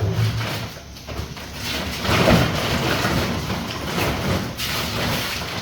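Plastic shopping bag rustling and crinkling as groceries are pulled out of it, loudest about two seconds in.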